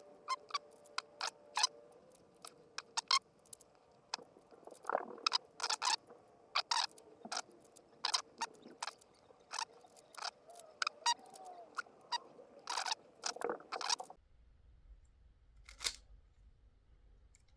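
Plastic 3x3 Rubik's cube being turned by hand, its layers clicking in quick, irregular turns at about two or three a second. The turning stops a few seconds before the end, with one last click after it.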